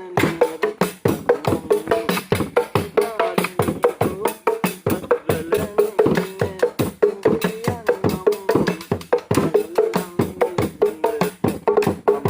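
Music with fast, busy percussion: sharp wood-block-like strikes several times a second over a wavering melody.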